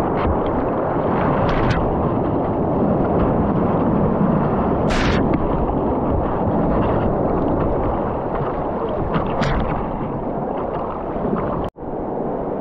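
Whitewater rapids rushing and splashing against a kayak's bow, with a few sharp splashes standing out. Near the end the sound cuts out for an instant and returns as a quieter rush of riffled water.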